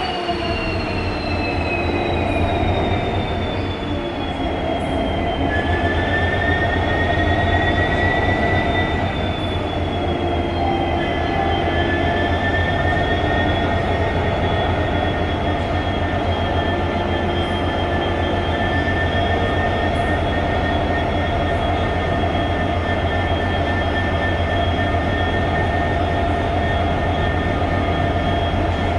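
WDP4D diesel-electric locomotive's 16-cylinder EMD 710 two-stroke engine running after start-up: a steady deep hum with high whines that fall in pitch over the first few seconds, then hold steady as the engine settles.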